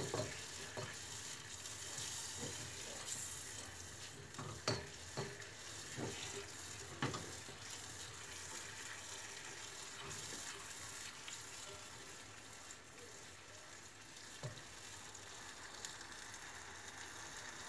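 Silicone spatula stirring a saucepan of chocolate mirror-glaze mixture (water, oil, sugar and cocoa) heating on a gas burner, with a steady faint hiss as it comes up towards the boil. A few short knocks of the spatula against the pan.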